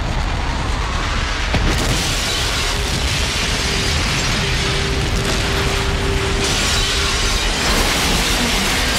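Film sound effect of a nuclear blast wave tearing through a building: a heavy, continuous low rumble, with a dense rush of fire and flying debris that comes in about two seconds in.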